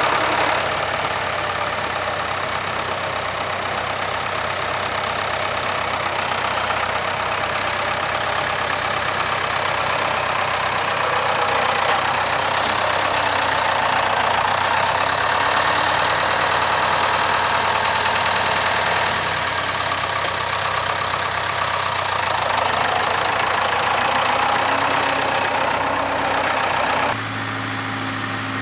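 Case 580K backhoe's four-cylinder diesel engine running steadily while digging. Near the end it drops to a quieter, steadier hum.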